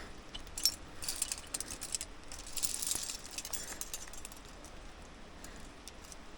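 Metal climbing hardware, carabiners and protection on a gear rack, clinking and jangling in irregular handfuls as gear is cleaned and sorted, loudest about a second in and again around three seconds in.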